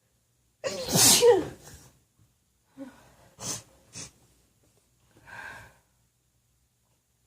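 A woman's loud, unmuffled sneeze about a second in, brought on by tickling her nose with a feather. A few quieter short breaths follow.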